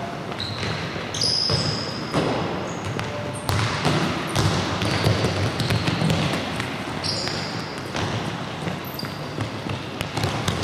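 Futsal ball being kicked and bouncing on a hard sports-hall floor, irregular thuds, with short high squeaks of trainers on the floor several times.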